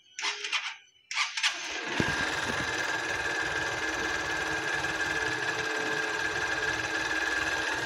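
Honda Unicorn 160's single-cylinder, air-cooled, fuel-injected engine starting up in the first two seconds, then idling steadily, recorded with a microphone held close to the crankcase.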